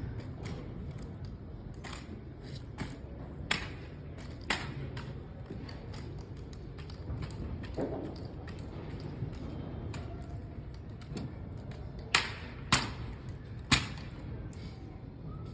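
Sharp slaps and knocks from a drill rifle being caught, spun and struck against hands and floor in an armed exhibition drill routine. The impacts come singly and irregularly, several in the first few seconds and three loud ones close together near the end, over a steady low background hum.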